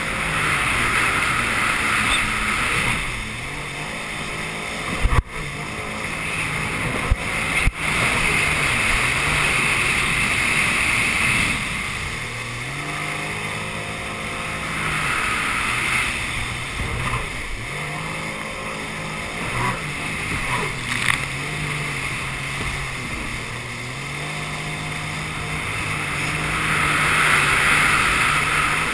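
Jet ski engine running under way, its pitch rising and falling several times as the throttle is opened and eased, over a steady rush of water spray and wind. Two sharp knocks stand out about five and eight seconds in.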